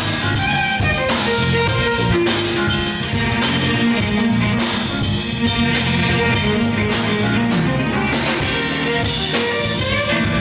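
Live band playing an instrumental number, with drum kit and congas keeping a steady beat under electric guitar, violin, bass and keyboard.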